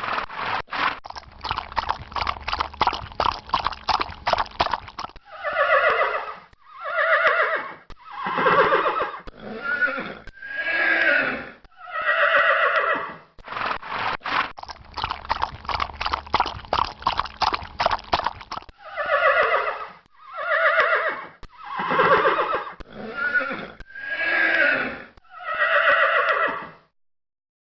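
A horse wading through water, with quick splashing hoof steps for about five seconds, followed by six horse whinnies one after another, each about a second long with a wavering pitch. The whole sequence then plays a second time.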